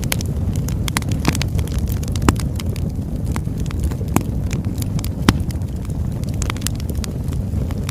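Birchwood fire burning, with a steady low roar of flames and frequent irregular sharp crackles and pops of the burning wood. A few louder pops stand out among them.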